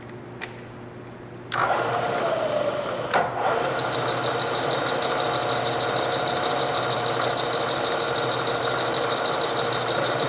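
Bridgeport Series 1 2 hp milling machine's spindle motor switched on about a second and a half in and then running steadily in back gear, with a steady whine. A sharp click sounds about three seconds in.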